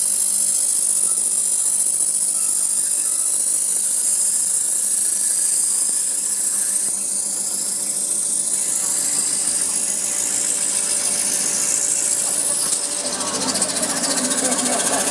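Homemade centerless grinding machine running and grinding a plastic workpiece: a steady motor hum under a high hissing grind that slowly drifts up and down in pitch.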